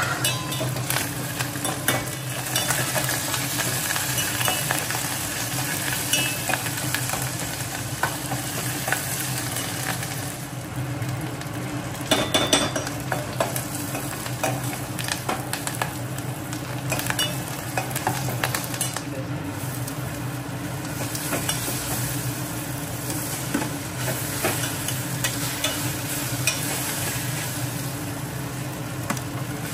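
A tempering of dried red chillies, mustard seeds and cumin sizzling in hot oil in a pan while being stirred, with scattered crackles throughout and a steady low hum underneath.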